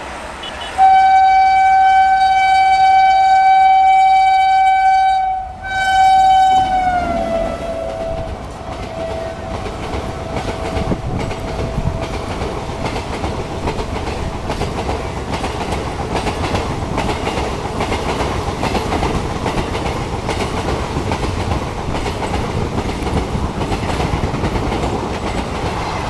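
WAP-7 electric locomotive's horn sounding one long blast of about five seconds, then a shorter blast whose pitch drops as the locomotive passes. The passenger coaches then roll past with a steady rumble and rhythmic wheel clatter over the rail joints.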